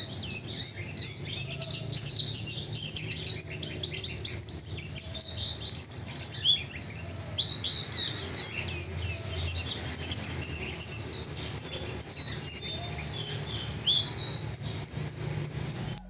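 Sikatan kerongkongan putih (SKP) flycatcher singing without a break: fast, high-pitched, somewhat harsh phrases of quickly rising and falling notes, with a few longer whistled notes near the end.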